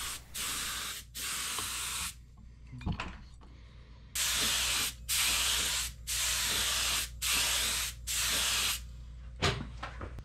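Small gravity-feed paint spray gun spraying a coat of paint onto small metal parts in short trigger pulls: about eight bursts of hiss, each under a second, with a two-second pause after the first three. A single light knock near the end.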